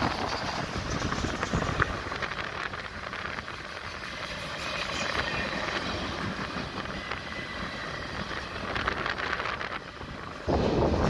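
Freight cars of a long mixed freight train rolling past, a steady rumble and clatter of steel wheels on the rails with scattered clicks. Near the end a sudden gust of wind noise hits the microphone and drowns it.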